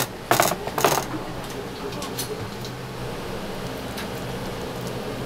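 Two brief, loud noisy kitchen handling sounds in the first second, with a click just before them and a few faint ticks later, over a steady low hum of kitchen ventilation.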